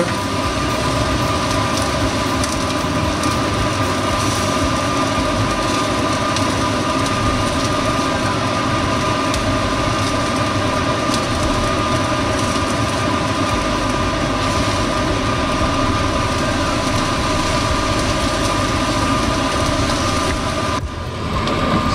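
Salmon fillets searing in a dry nonstick frying pan on a hot electric cooktop: a steady sizzle with a constant humming tone underneath, cut off suddenly near the end.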